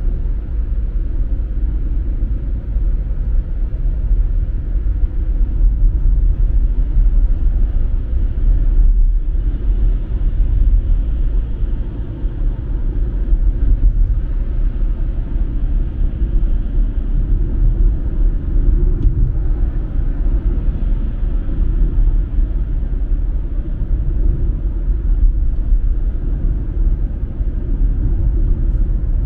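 Steady low rumble of a car being driven at a constant pace.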